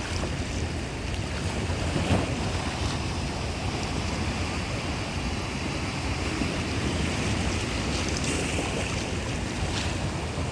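Sea waves washing steadily, with wind rumbling on the microphone and a slightly louder wash about two seconds in.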